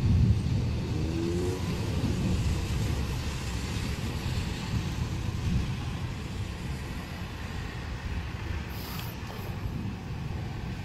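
Rolling thunder: a low rumble, loudest at the start and slowly fading. A car accelerating on the road below rises in pitch during the first second or two.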